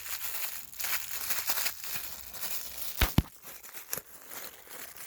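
Packing material rustling and crinkling as parts are pulled out of a ceiling fan's box, with two sharp knocks close together about three seconds in and a lighter one a second later.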